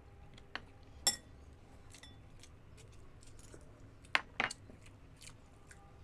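Quiet mukbang eating sounds: soft mouth clicks and chewing of chicken and coconut soup. A few sharp clinks break in, one ringing briefly about a second in and two close together near four seconds in.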